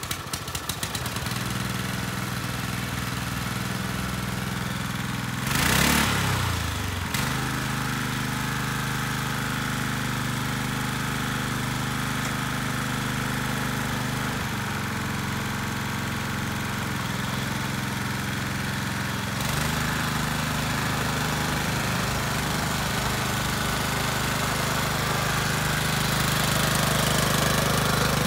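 Honda F510 tiller's 5-horsepower engine running steadily just after its electric start, with a brief louder surge about six seconds in and a small change in its note around fourteen and nineteen seconds. It runs a little louder near the end as the tiller moves off.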